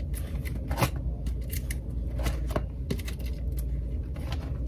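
Plastic photocard sleeves and binder pages crackling and clicking as they are handled and turned: an irregular run of short, sharp ticks and rustles.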